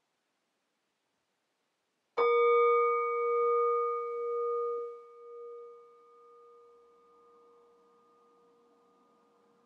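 Singing bowl struck once about two seconds in. It rings with a slow wobble in loudness and fades away over the following seconds.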